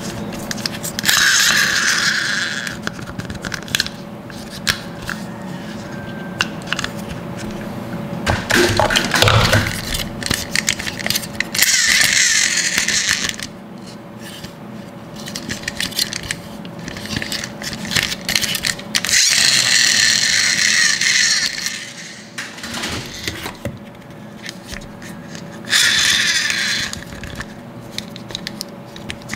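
Plastic toy monster trucks being handled, with clicking and rattling of plastic parts. Four separate whirring bursts of about two seconds each come from the trucks' friction-motor gears as the wheels are spun.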